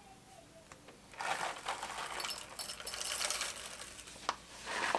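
Whole coffee beans pouring from a paper bag into a small coffee grinder: a dense rattling patter of beans landing in the grinder's cup, starting about a second in and lasting about three seconds, with a single sharp click near the end.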